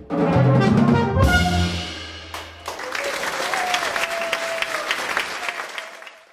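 A jazz quartet of horn, piano, double bass and drums plays its closing notes, with a final hit about a second in and the bass ringing on until about two and a half seconds in. The audience then applauds, and the applause fades out near the end.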